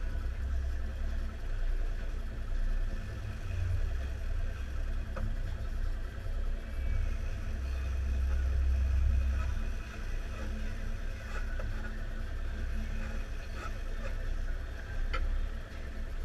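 Twin outboard motors on the stern of a sport-fishing boat idling steadily, with a few faint clicks in the second half.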